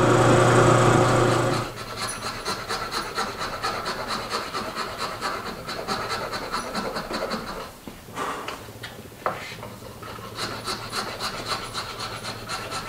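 A benchtop mill-drill motor hums briefly, then stops abruptly. It is followed by steady, rhythmic rubbing and rasping strokes of a hand tool working a wooden loading block clamped in a bench vise, with a short pause about halfway through.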